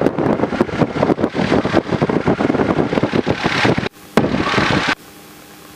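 Aircraft radio heard through the headset intercom: it opens with a click into about four seconds of crackly, garbled transmission or static, breaks off, then clicks back on for a second shorter burst that cuts off abruptly. A faint steady engine hum runs underneath.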